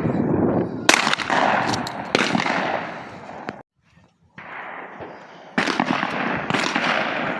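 Ithaca Featherlight pump-action shotgun fired at clay targets. Two loud shots come about a second apart early on, and a third comes after a short gap. Each shot trails a long rolling echo.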